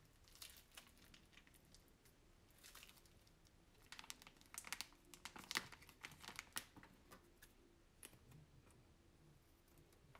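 Plastic piping bag crinkling and crackling as hands handle and squeeze it. The crackles come in scattered bunches, thickest from about four to seven seconds in.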